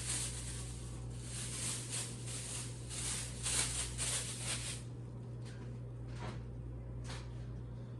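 Rustling, handling noises in quick repeated strokes for about five seconds, then only a few scattered ones, over a steady low hum.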